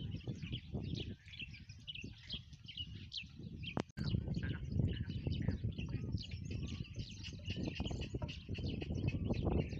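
Many small birds chirping all at once, over a steady low rumbling noise; the sound breaks off abruptly a little under four seconds in, and the low noise is louder after the break.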